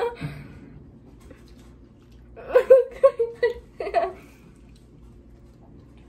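Short bursts of giggling and laughter about two and a half seconds in, after a quiet moment.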